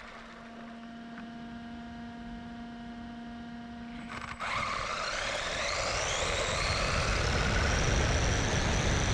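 A steady electrical hum, then from about four and a half seconds a louder whine that climbs in pitch over a low rumble, as a radio-controlled car's electric motor spins up.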